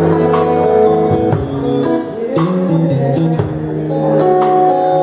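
Live band playing: guitar chords held over a drum kit beat.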